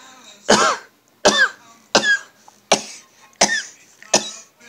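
A sneezing fit: six short, sharp sneezes in quick succession, about one every 0.7 seconds.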